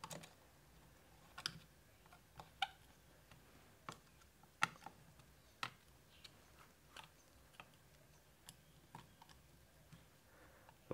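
Faint, irregular clicks and ticks of a small screwdriver turning the captive back-cover screws of a SPOT Gen 4 GPS messenger as they are gently tightened down onto the O-ring seal.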